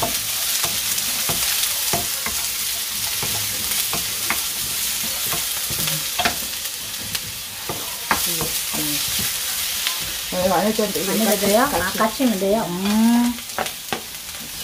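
Sliced onion and carrot sizzling in a nonstick wok as a wooden spatula stirs them, with scattered clicks of the spatula against the pan. A person's voice sounds briefly about ten seconds in.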